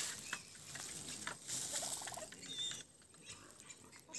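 Dry grass rustling and crackling with scattered clicks as someone moves through it. About two seconds in comes a brief, fast rattling animal call.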